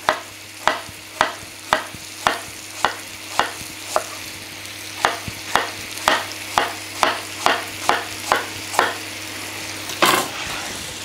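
Knife dicing a peeled apple on a plastic cutting board: even taps about two a second, with a short pause midway, over the steady sizzle of butter and brown sugar frying with apple pieces in a pan. Near the end there is a louder scrape as the diced cubes are gathered on the board.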